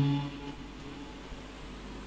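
The held final note of a man's sung Quran recitation, the word "ar-rajim", ends within the first half-second and fades briefly in the hall's reverberation. After it comes only a steady faint hiss with a low hum.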